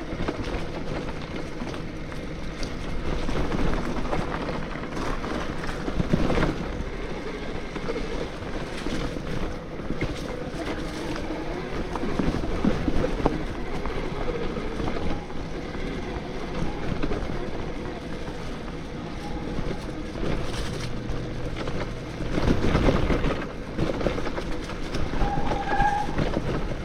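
Electric mountain bike with a 72 V BBSHD mid-drive motor riding a dirt trail: a faint steady motor whine under tyre and wind noise on the microphone, with louder rushes about 6 s and 22 s in.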